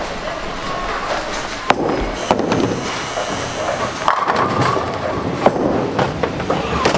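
Bowling alley clatter: balls rolling down the lanes and pins crashing, with several sharp knocks scattered through it.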